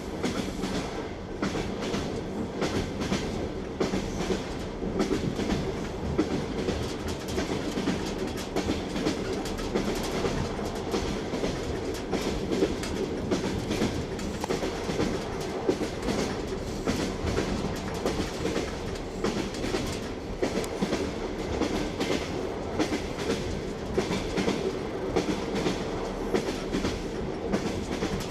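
Train wheels clattering over the rail joints in a continuous clickety-clack, over the steady rumble and hum of a moving railway carriage.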